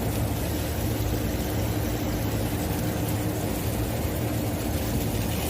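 Package air-conditioning unit running: a steady hum of its fan motors and compressor with a constant low tone.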